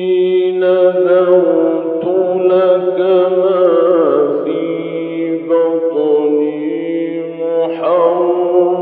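A man reciting the Quran in the melodic mujawwad style, holding long ornamented notes that glide and waver in pitch. It has the thin sound of an old recording with no treble.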